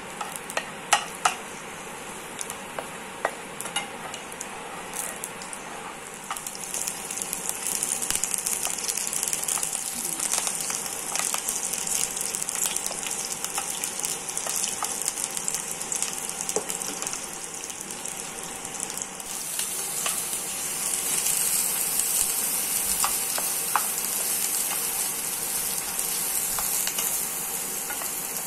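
Garlic, sliced green capsicum and carrot sizzling in hot oil in a non-stick frying pan, stirred with a wooden spatula. A few sharp taps of the spatula on the pan in the first seconds. The sizzle grows louder about six seconds in and again about twenty seconds in.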